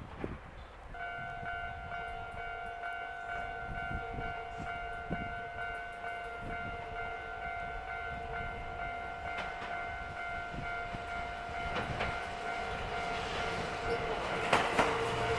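Japanese railway level-crossing warning bell starts about a second in and rings on steadily as a train approaches. Near the end the train's noise swells with sharp knocks as it reaches the crossing.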